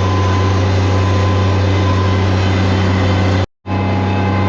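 An engine running steadily at constant speed, with a strong low hum and a steady whine above it. It drops out for a moment about three and a half seconds in, then carries on unchanged.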